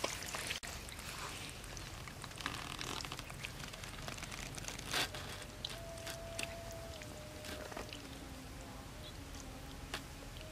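Hands digging and squelching through wet tidal mud, with scattered wet clicks and crackles and one louder slap about halfway through.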